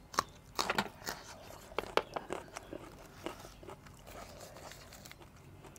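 A person biting and chewing crisp raw vegetables, close to the mouth. A cluster of sharp crunches comes in the first second, then single crunches grow sparser as the chewing goes on.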